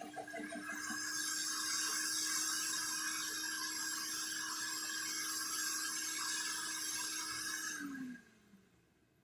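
Sun Joe CJ603E 15-amp electric wood chipper/shredder running with a steady motor hum. From about a second in, a harsh grinding noise is added as it chips wood. About eight seconds in, the machine is switched off and the motor hum slides down in pitch as it winds down.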